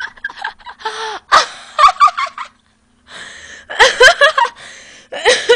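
A young woman laughing hard in breathy, gasping bursts. There are two bouts with a short pause between them, about halfway through.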